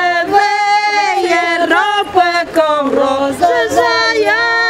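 Elderly women singing a song together unaccompanied, with long held notes that slide from one pitch to the next.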